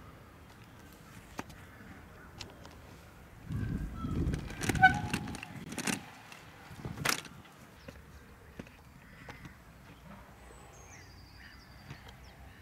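Kick scooter wheels rolling, with a loud rumbling rattle and several sharp knocks for a few seconds from about three and a half seconds in as it crosses a brick-paved road. Faint bird chirps near the end.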